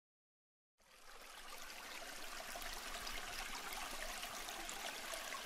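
After a moment of silence, a steady rushing, water-like noise fades in about a second in and slowly grows louder.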